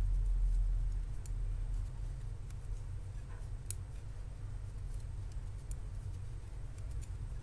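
Metal knitting needles making faint, irregular clicks as stitches are knitted and purled in a 1x1 rib, over a steady low hum.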